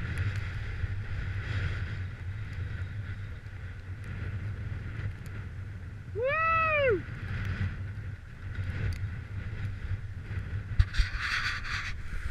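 Wind rumbling and buffeting on the microphone of a camera riding a chairlift. About six seconds in, a single short call rises and falls in pitch. Near the end there is a brief burst of scraping hiss.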